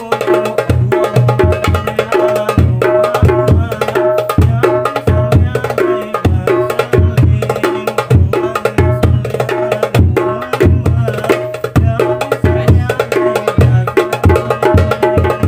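Hadroh drum set played by hand in a fast, steady rhythm: sharp darbuka strokes and a small frame drum over deep hadroh bass drum thumps. It is a sound check of the newly made drums.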